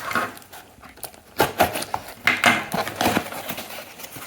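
Hands handling a mail-order package: a run of short rustles and light knocks, about a second and a half in, as it is picked up and opened.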